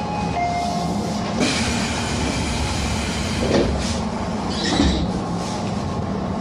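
Tobu 10030 series electric train heard from inside the car while running: a steady rumble of wheels and traction motors with a faint motor whine. A few brief, louder knocks come through, about 1.5, 3.5 and 5 seconds in.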